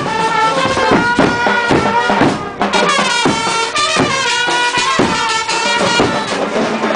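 Band music with a melody and a steady beat.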